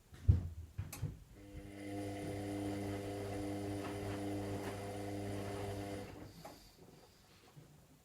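Washing machine near the end of a synthetics cycle: two knocks, then the drum motor runs with a steady hum for about five seconds and fades away.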